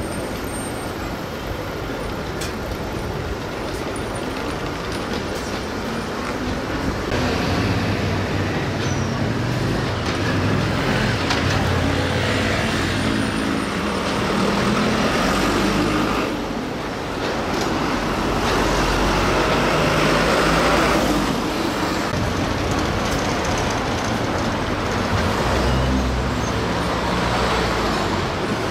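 City street traffic: vehicle engines running and passing, buses among them. It gets louder about seven seconds in.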